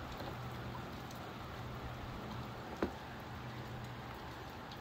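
Moderate rain shower falling steadily, an even hiss of rain with a faint low hum beneath it. There is one sharp tap a little under three seconds in.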